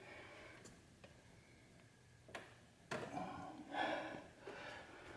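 Quiet hand work on rubber hoses and clamps in an engine bay: two sharp clicks about two and a half and three seconds in, then a louder rubbing, breathy sound lasting about a second and a half.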